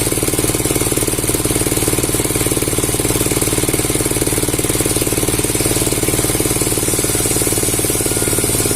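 Motor-driven wood saw running steadily with a fast, even rattling pulse.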